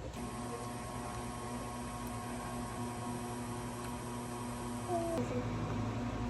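A steady electrical hum from an appliance or small motor. It starts suddenly and stops about five seconds in, with a brief gliding high sound just before it stops.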